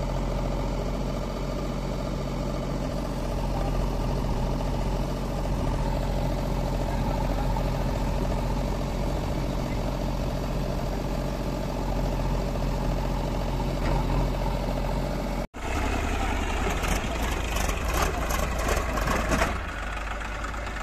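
Diesel engines of a JCB 3DX backhoe loader and a tractor running steadily as the backhoe loads mud into a tractor trolley. About five seconds from the end the sound cuts abruptly to a tractor engine running, with a couple of seconds of rattling clatter as its tipping trolley dumps the mud.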